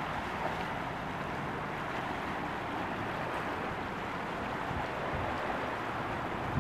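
Steady wash of surf on a rocky seashore, with wind rumbling on the microphone.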